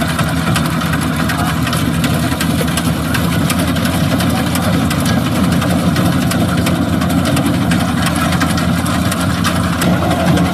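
Rice harvesting machine's engine running steadily at a constant speed, with a continuous low hum and mechanical noise.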